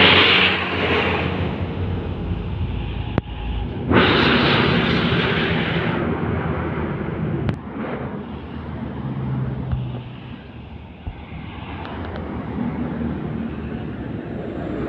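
Road traffic: heavy diesel trucks and motorbikes passing, with a steady low engine hum. Two loud rushing surges come at the start and about four seconds in.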